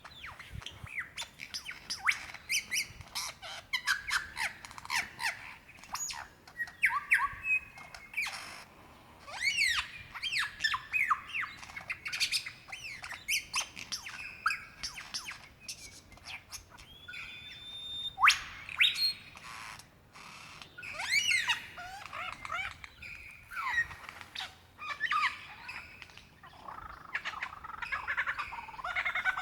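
Superb lyrebird singing a long, varied run of calls: quick rising and falling whistled sweeps, sharp clicks and squawks following one another almost without pause, the kind of song in which a male lyrebird strings together mimicry of other birds.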